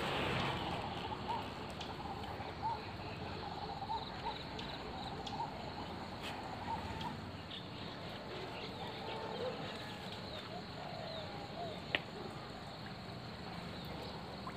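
Rural outdoor ambience: short, faint chirping calls repeat irregularly over a steady background hiss, with a single sharp click about twelve seconds in.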